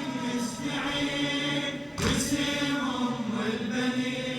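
Group of male voices chanting a slow latmiya mourning refrain in long held lines, with a sharp slap-like strike about two seconds in.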